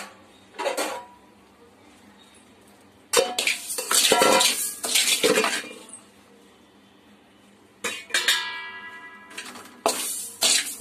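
Metal kitchen vessels and utensils clattering as they are handled. A few knocks at first, a busy stretch of clatter in the middle, then a clink that leaves a metal pot ringing for about a second, and more clatter near the end.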